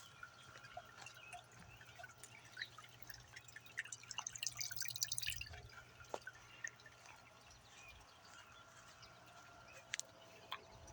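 Water fountain dripping and splashing with many small, irregular plinks, busiest about halfway through, and a sharp click near the end.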